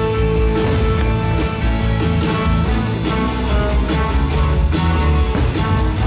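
Loud fireworks-show soundtrack music with a steady beat.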